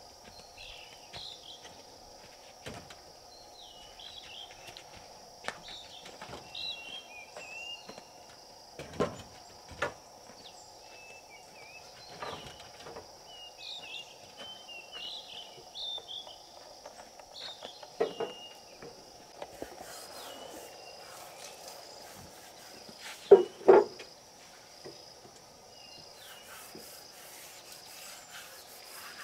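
Rural outdoor ambience: insects droning steadily on one high pitch while birds chirp now and then. Scattered knocks break in, the loudest a quick pair near the end.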